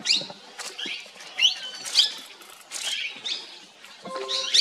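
Wild birds calling in short, high chirps that sweep up and down in pitch, roughly two a second. A brief low steady tone joins them near the end.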